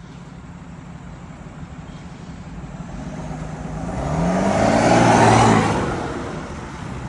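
Chevrolet Silverado's six-cylinder Duramax diesel with an aftermarket stainless exhaust accelerating past. The engine note rises and swells to its loudest about five seconds in, then fades.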